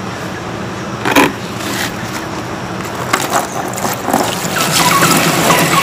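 Water poured from a bowl into a tank lined with clear plastic sheet, splashing onto the sheet. It starts about two-thirds of the way in and grows louder, after a brief rustle about a second in.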